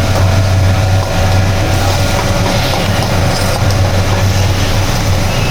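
A steady, loud low hum with an even rush of noise over it, machine-like and unbroken.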